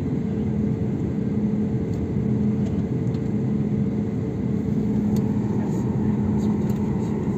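Steady cabin noise of a jet airliner taxiing, heard from inside at a window seat: the engines run at taxi power with an even low hum and a couple of steady tones.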